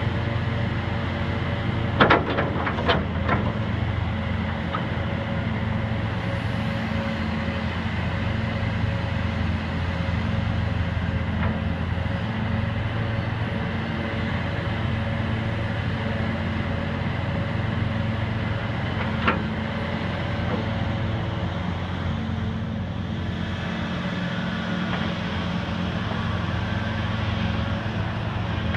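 John Deere 850D LC excavator's diesel engine running steadily, with a few sharp knocks two to three seconds in and one more past the middle.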